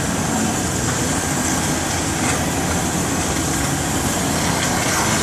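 Oxygen lance burning a hole into a steel shaft: a steady rushing hiss of oxygen and burning steel that does not let up.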